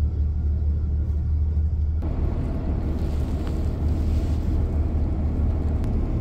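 Truck engine idling, a steady low rumble heard inside the cab. From about two seconds in, faint rustling of paper and plastic as coin capsules in sticky notes are handled.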